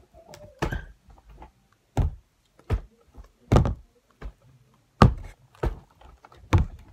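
A series of about eight sudden, irregular thunks and knocks, roughly one a second, from an object handled and bumped right against the phone's microphone.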